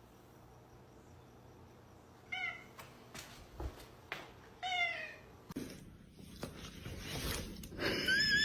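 A cat meowing: two short meows with falling pitch a couple of seconds apart, then rustling and knocks, and a longer wavering meow near the end.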